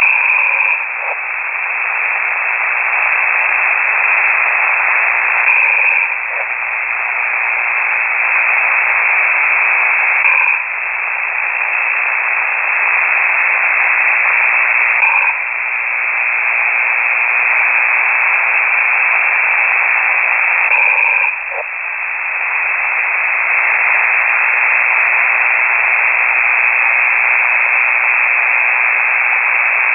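Ham radio single-sideband signal received on a KiwiSDR: loud hiss filling the narrow voice band, breaking and swelling back about every five seconds in a slow breathing rhythm. This is the snoring of an amateur operator carried over the air.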